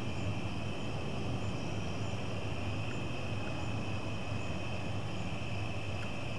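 Steady evening chorus of insects, a continuous high-pitched trill, over a low steady rumble.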